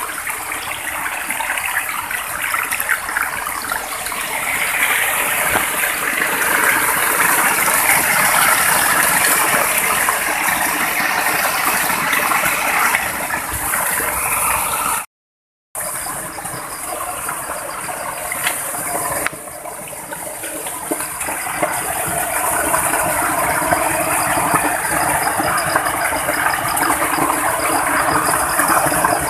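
Small waterfall in a stream, water rushing and splashing steadily close by. The sound breaks off completely for under a second about halfway through.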